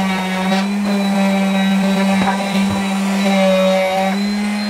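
Rupes LC71T mini orbital sander running steadily while sanding wood: a steady hum with overtones, the upper tones swelling and fading as the pad works over the surface.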